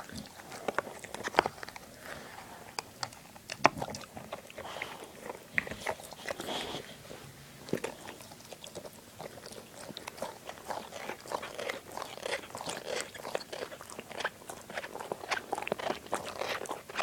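A dog chewing and biting into a toy ball: a steady, irregular run of crunching bites.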